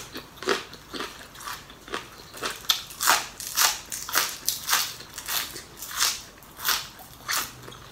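Raw green onion stalk being bitten and chewed: crisp crunching, about two crunches a second.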